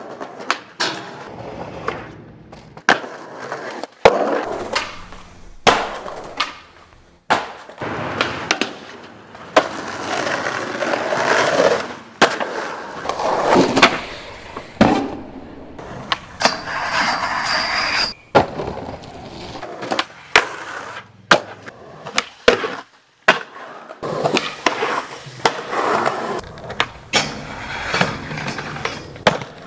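Skateboards on concrete: wheels rolling, sharp pops and landings, and boards grinding metal handrails, clip after clip. The sound cuts off abruptly and changes many times.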